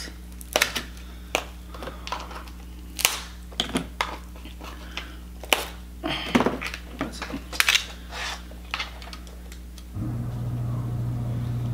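Cooked lobster shell cracking and snapping as legs and shell pieces are broken off by hand: a string of sharp, irregular clicks and crunches. A low steady hum starts near the end.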